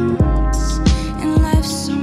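Live R&B-pop band music with no singing: sustained keyboard chords over a deep electronic kick drum and hi-hats.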